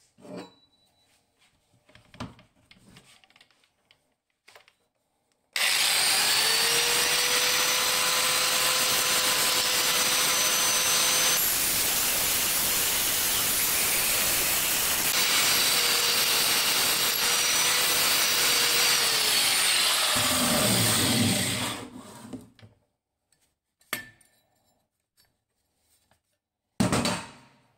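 Handheld angle grinder (Parkside) starting up and running with an abrasive disc on the steel face of an anvil for about sixteen seconds, grinding off old red paint, then spinning down. Near the end there is one sharp metallic strike with a short ring.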